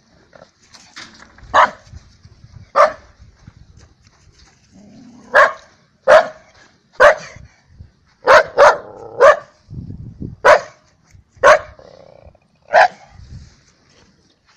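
A dog barking: about eleven short, sharp barks at uneven intervals, a couple coming in quick succession around the middle.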